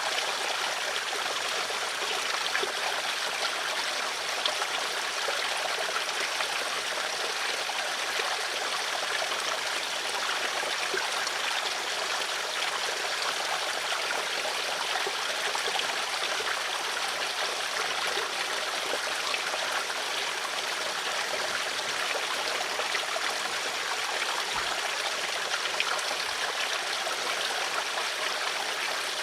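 Flowing water running steadily, an even splashing hiss with little low rumble and no breaks.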